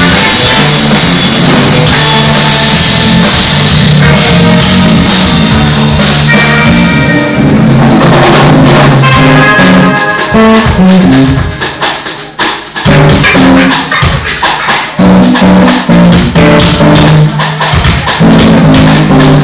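Live band playing loud, recorded at close to full level: a bass guitar line under electric guitar and drums. The playing thins out and drops briefly about twelve seconds in before coming back in full.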